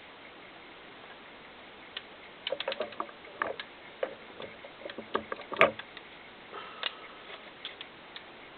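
Light, irregular clicks and taps of a Colt M4 .22LR carbine's metal parts being handled during reassembly and oiling, starting about two seconds in, with one louder click a little past halfway.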